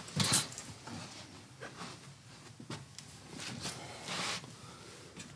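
Quiet room with faint rustling and shuffling of people moving about, with a few short noisy sounds, the loudest just after the start and another a little after four seconds.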